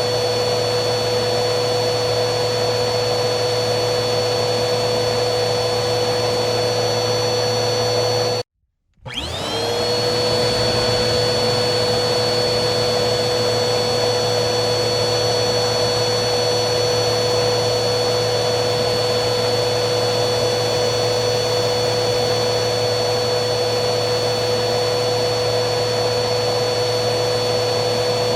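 Vacuum cleaner running with a steady motor whine and rushing air. About eight seconds in it cuts out suddenly for half a second, then starts again, its whine rising as the motor spins back up to speed and then holding steady.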